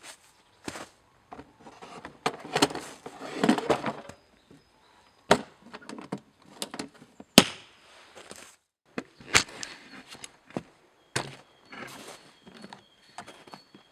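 Sharp knocks and clicks against a wooden carrying box as a chainsaw is handled at it, with a stretch of scraping and clothing rustle early on; the loudest knock comes about halfway through.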